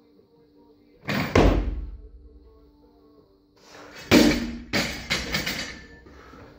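Bumper-plate barbell dropped from overhead onto the gym floor about four seconds in: a loud bang, then several rattling bounces of the plates. About a second in, an earlier loud thud and rattle as the barbell is snatched.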